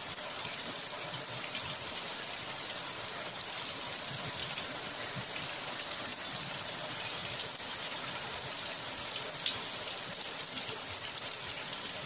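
Heavy rain pouring steadily onto trees, leaves and the ground, an even hiss that does not let up.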